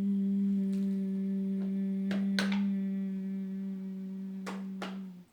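A woman holding one long, steady nasal 'nnnn' hum at a single pitch: the consonant N made with the mouth closed, the breath going out through the nose. It stops shortly before the end, with a few faint clicks heard during it.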